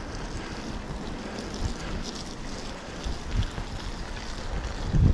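Wind buffeting a GoPro's microphone during a mountain-bike ride, over a steady rushing noise. Low thumps from bumps come now and then, the heaviest near the end.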